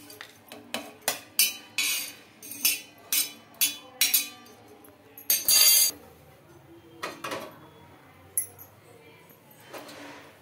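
Steel spoon scraping and knocking against a flat griddle pan (tawa), clinking about twice a second as fried small bitter gourds are scooped off into a steel plate; the clatter stops about six seconds in, leaving only a few faint knocks.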